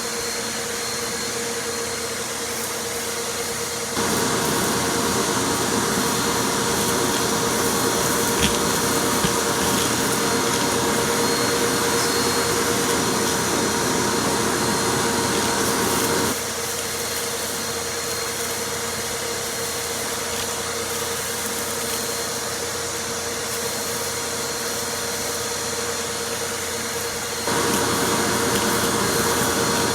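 Vacuum cleaner running steadily. Its sound becomes louder and fuller from about four seconds in for some twelve seconds, and again near the end, with a single sharp click about eight seconds in.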